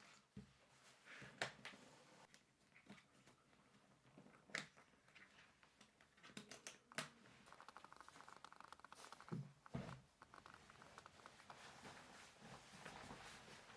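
Faint small handling sounds in a quiet room: scattered clicks and taps, with a rapid rasping run lasting a couple of seconds just past the middle.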